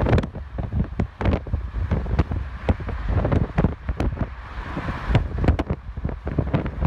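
Wind buffeting the microphone in uneven gusts, over the low rumble of a car driving along the road.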